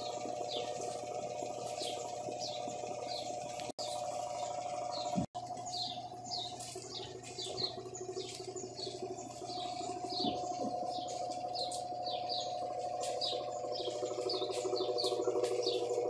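Mueller Energy 8 kg top-load washing machine in its spin cycle, giving a steady motor hum. Birds chirp over it again and again in short falling notes.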